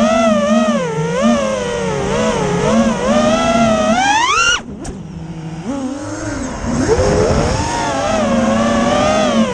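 FPV drone's motors and propellers whining, the pitch wavering up and down with each throttle change. About four and a half seconds in the pitch climbs steeply, then drops off to a quieter hum before the motors spool back up with a rising whine.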